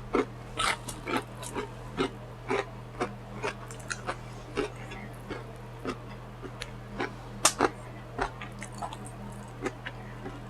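A person chewing food with lips smacking open, about two wet smacks a second, with a louder smack about seven and a half seconds in.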